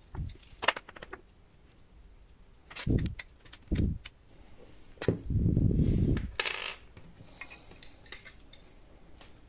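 Encoder housing and parts handled by hand: a few light clinks, two dull knocks around three to four seconds in, then about a second of rubbing and a short metallic clatter as the cylindrical casing is pulled apart into two halves.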